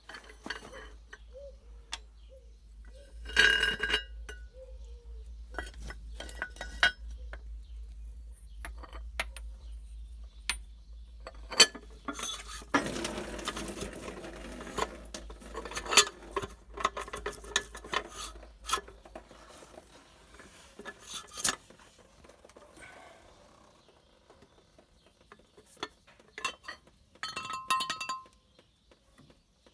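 Metal tools and engine parts clinking and clanking at irregular intervals, with a couple of louder ringing metallic strikes near the start and near the end. A low steady hum runs beneath and stops about two-thirds of the way through.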